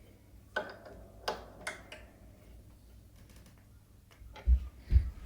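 Scattered metal clicks and clinks of an open spanner working a pedal spindle into the crank arm, then two dull thumps about half a second apart near the end.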